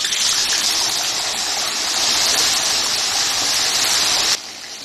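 Raw chicken pieces sizzling loudly as they go into hot oil in a karahi, the oil bubbling hard around them in a steady hiss that drops sharply near the end.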